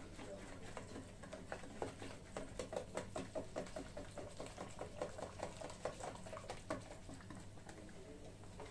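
Hand whisk beating a yeasted flour batter in a plastic bowl: a quiet, rapid run of soft wet taps and scrapes.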